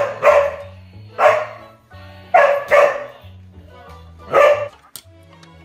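A large dog barking: six barks, some in quick pairs, over background music.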